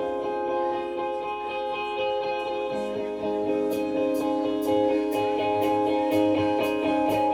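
Live rock band playing: electric guitar notes ringing and overlapping. A steady light high tapping beat comes in about halfway through.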